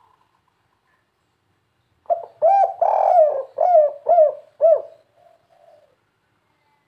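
Spotted dove cooing: a single phrase of about six short, arched coos with a longer note in the middle. It starts about two seconds in and trails off into a few faint notes.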